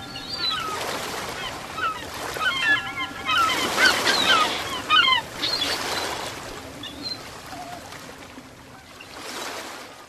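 Ocean waves washing in, with birds calling over them in short chirps. The surf swells loudest about four seconds in, and the calls thin out in the second half.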